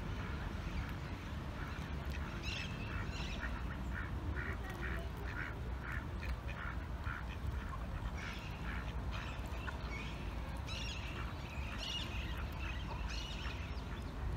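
Mallard ducks quacking: runs of short calls that start about two seconds in and go on almost to the end, over a low steady rumble.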